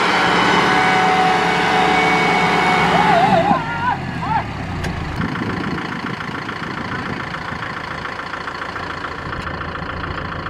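Kubota M6040SU tractor's four-cylinder diesel engine working hard under load, dragging a loaded trailer through deep mud. After about three and a half seconds it drops to a lower, steadier running, with a short wavering cry heard about the same time.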